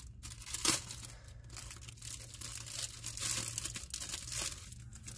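Clear plastic cellophane packaging crinkling and rustling as it is handled, with a sharper crackle a little under a second in.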